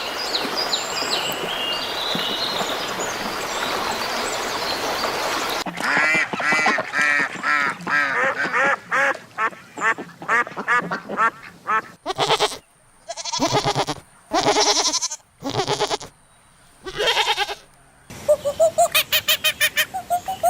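Farm ducks and other fowl calling in a series of short clips. A noisy farmyard stretch with high chirps comes first, then rapid runs of quacking, then single calls with short pauses between them, and near the end another quick run of calls at about five a second.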